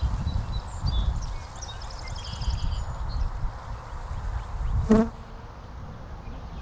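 Italian honey bees buzzing around an open hive during a package installation, over a steady low rumble. About five seconds in, a single bee flies close past the microphone and gives a brief, loud buzz. High chirps sound during the first few seconds.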